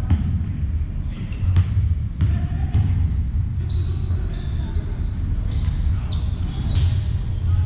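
Basketball game in a large sports hall: the ball bouncing on the court in a string of sharp thuds, short high squeaks of sneakers on the floor, and scattered players' voices, over a steady low hum of the hall.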